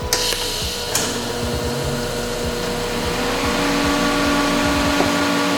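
An electric motor in a shop tool or machine running steadily with a constant whine; a second, stronger tone joins about three seconds in as it gets a little louder.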